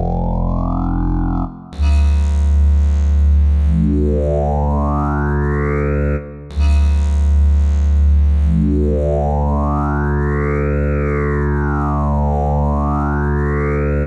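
PPG Infinite Pro software synthesizer playing its "Reused Sawtooth" preset: long held low notes, each with a bright sweep that glides up in pitch, and on the last note rises, falls and rises again. A new note starts about two seconds in and again about six and a half seconds in, each after a brief dip.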